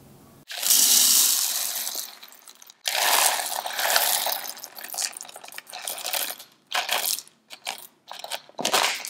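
Whole coffee beans poured from a bag into the clear plastic bean hopper of an espresso machine, a clattering rush of beans that starts about half a second in and thins to scattered rattles in the second half.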